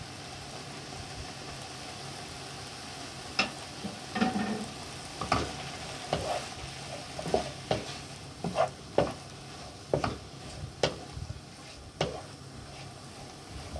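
Turkey pieces with onion and tomato sizzling steadily in a nonstick frying pan. From about three seconds in, a wooden spatula stirs in freshly added turmeric and chilli powder, scraping and knocking against the pan in irregular strokes.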